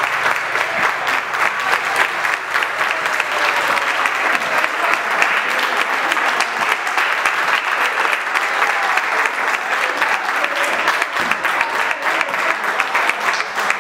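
Audience applauding steadily: a dense patter of many hands clapping, with a few voices mixed in.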